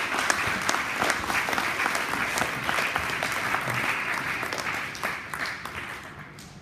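Audience applauding, with many hands clapping together and dying down near the end.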